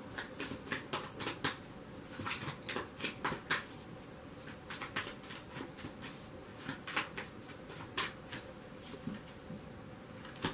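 A deck of oracle cards being shuffled by hand: many quick, irregular flicks and soft slaps of cards against each other.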